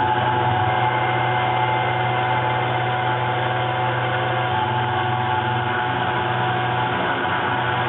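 Taig CNC mill running its spindle at about 6500 RPM while a 45-degree four-flute end mill engraves an aluminium plate: a steady mechanical hum with a few steady whining tones above it.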